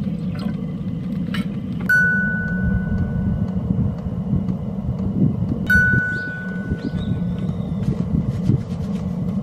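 Steady low rumble, with a bright chime-like ding about two seconds in and another near six seconds, each ringing out for over a second.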